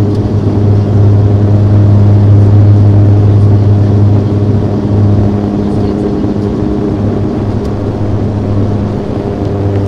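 Bombardier Q400 turboprop heard from inside the cabin: the Pratt & Whitney PW150A engine and propeller give a loud, steady drone with a strong low hum. The hum eases a little in the second half and swells again near the end.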